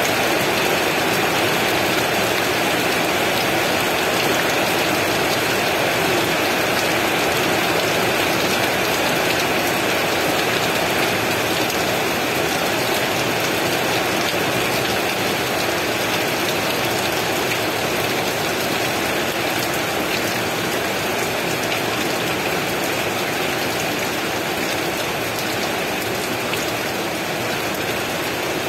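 Heavy rain pouring steadily, an even, unbroken hiss of countless drops.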